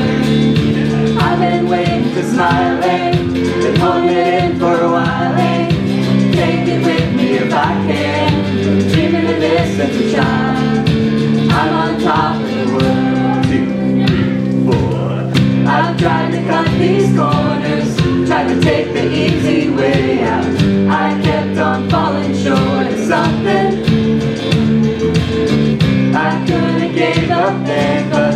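A live band song with guitars and a lead singer at a microphone, the standing audience singing along in a group.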